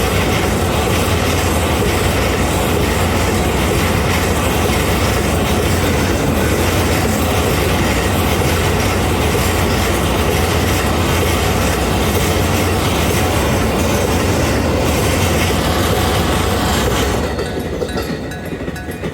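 Freight train of hopper wagons rolling past a level crossing, the steady noise of its wheels on the rails, which falls away about seventeen seconds in as the train goes by.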